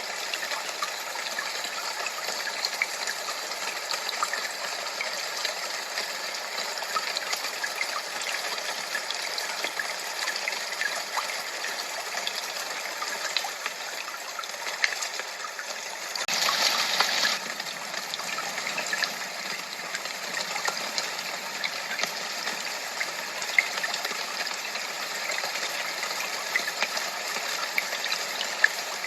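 Steady rush of running water with fine splashing flecks through it. There is a brief louder gush about sixteen seconds in, lasting a second or so.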